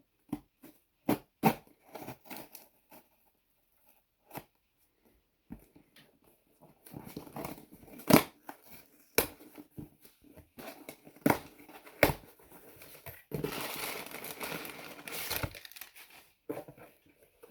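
A mailed package being opened by hand: scattered taps and clicks, then crinkling and rustling of the packaging with a few sharp snaps, and a sustained tear near the end.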